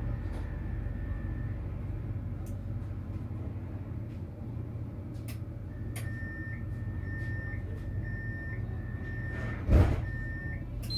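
Tram standing at a stop with a steady low hum, its door-closing warning beeping in a run of short, evenly spaced high beeps from about six seconds in, and a loud thump near the end as the sliding doors shut.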